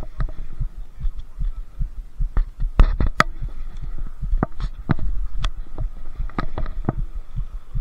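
Close handling noise on a body-worn action camera: irregular sharp clicks and knocks over a constant low thumping, loudest about three seconds in.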